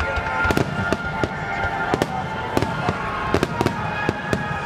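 Aerial fireworks bursting in an irregular run of a dozen or so sharp bangs, with steady music tones underneath.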